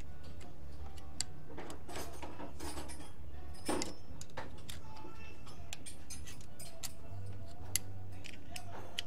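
Adjustable wrench clinking against a Heli-Coil insertion tool as it turns the coil into a tapped hole in an engine: scattered light metal clicks and ticks over a steady low hum.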